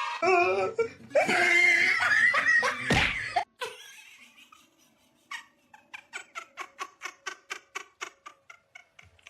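Loud human laughter for the first three seconds or so. After that comes a quieter run of short, evenly spaced sounds, about three a second.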